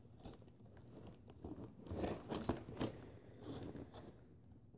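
Faint rustling and crinkling of packaging with a few light knocks, as a toy blaster's drum magazine is worked out of its cardboard box.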